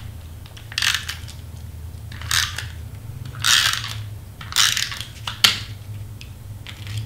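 A double-sided tape runner drawn across thin cardstock in about five short, scratchy strokes, the last one a sharper click.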